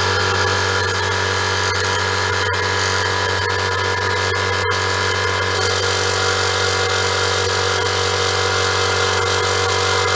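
SGS 24-litre 2.5 hp air compressor running steadily under load, its motor and pump humming as pressure builds in the tank toward the automatic cut-out.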